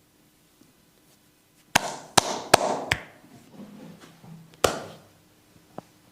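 A masseur's hands striking the body with sharp slaps: four in just over a second, then a fifth nearly two seconds later.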